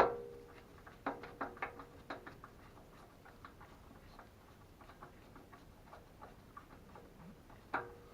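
Scattered light clicks and taps of hands working at a gas furnace, handling tools and parts. They come thick for the first couple of seconds, then thin out and grow faint, with one louder click near the end.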